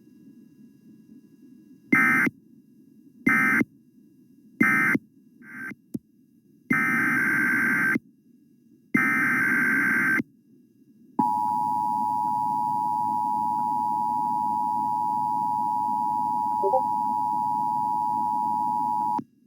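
Emergency Alert System SAME data bursts: three short warbling bursts, then two longer ones, followed by the EAS two-tone attention signal (853 and 960 Hz), held steady for about eight seconds and cutting off abruptly near the end.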